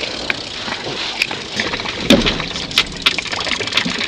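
Water lapping and sloshing against a small fishing boat's hull over wind noise, with scattered small clicks and a dull knock about two seconds in.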